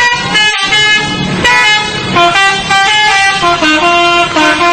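Modified 'telolet' bus horn playing a quick tune, one short note after another in changing pitches.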